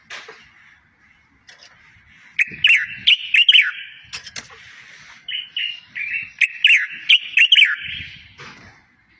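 A songbird singing two fast phrases of sharp chirps and quick down-slurred whistled notes, a short pause between them, over a faint steady hiss.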